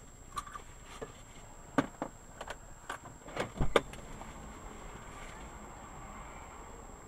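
Clicks and knocks from the inside of a stopped car, heard through a dashcam: about nine sharp clicks in the first four seconds, then a faint steady rumble, with a thin high electronic whine throughout.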